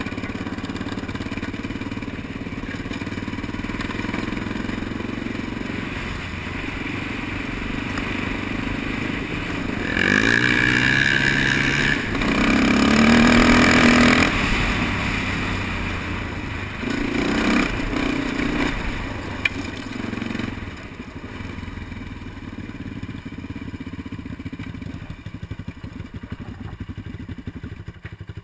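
Honda TRX400EX quad's single-cylinder four-stroke engine running on a gravel trail. It revs up hard with a rising pitch about ten seconds in and stays loud for several seconds, revs briefly again a little later, then settles to quieter, steadier running near the end.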